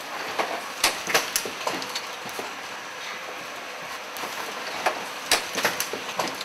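Automated assembly machine running, its pneumatic pick-and-place grippers and slides clacking in two short clusters of sharp clicks, about a second in and again near five seconds, over a steady mechanical hum.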